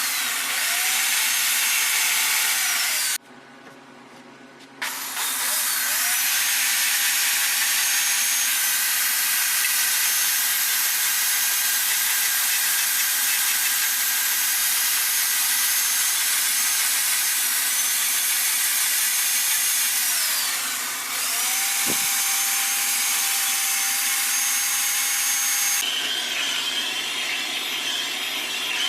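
Electric rotary carving tool with a carving bit cutting wood, whining at high speed; its pitch sags as the bit bites into the wood and climbs back as it frees up. It cuts out for about a second and a half about three seconds in, then spins back up, and near the end the sound turns rougher and grittier as the bit grinds harder into the wood.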